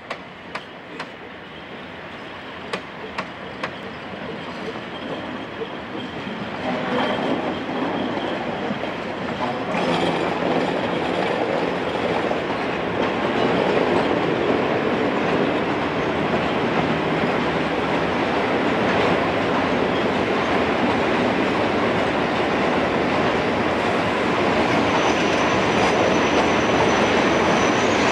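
Train rolling on rails, its wheels clattering: a few sharp clicks at first, then the running noise grows louder over the first ten seconds and stays steady. A high wheel squeal sets in near the end.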